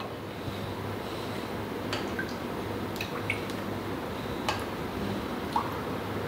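Water being poured into a bowl for a dipping sauce, a steady run of liquid with a few small clicks and knocks from the bowl and utensils.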